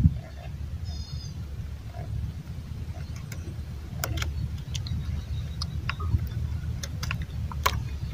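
Small sharp plastic clicks as a motorcycle's alternator (stator) wiring connector is worked loose and unplugged, over a steady low rumble, with a short high chirp about a second in.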